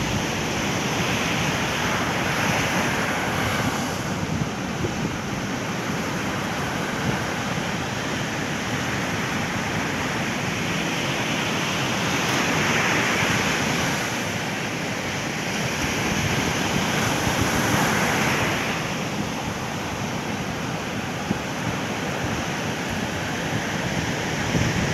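Ocean surf breaking on the beach: a steady wash that swells louder several times as waves come in, with wind buffeting the microphone.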